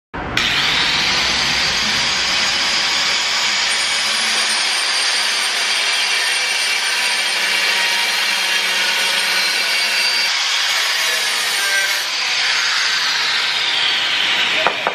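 Electric angle grinder with a cut-off disc cutting through galvanized steel pipe: a loud, steady grinding with a high motor whine that rises as it spins up just after the start. Near the end the whine falls in pitch, with a few sharp clicks.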